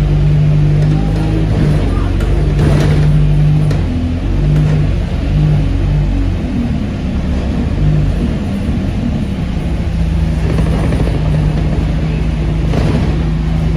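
Inside a moving Alexander Dennis Enviro200 single-deck bus: a steady low drivetrain hum that cuts in and out under a constant road rumble, with a few short rattles from the body and fittings.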